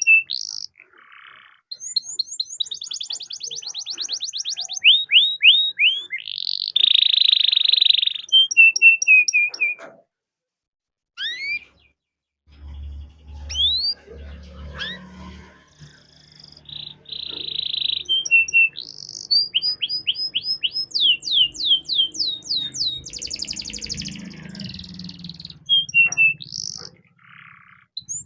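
Domestic canary singing a long song of fast trills and rolls, runs of rapid repeated chirps and buzzy notes, with a short pause about ten seconds in.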